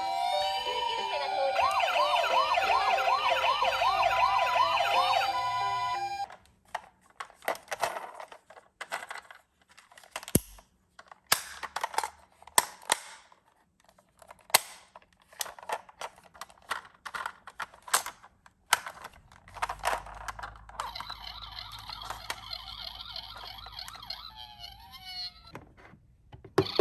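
A short music jingle, then a string of sharp clicks and taps, then an electronic toy ambulance siren that starts about twenty seconds in and runs on steadily.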